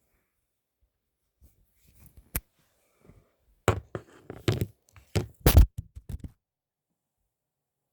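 A run of short knocks and thumps with some light scraping. There are about six of them between two and six and a half seconds in, the loudest two near the middle and just past it.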